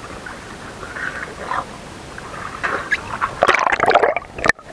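Seawater lapping around a waterproof action camera at the waterline; about three and a half seconds in, water washes over the camera, giving a loud burst of splashing that cuts out abruptly twice as it goes under.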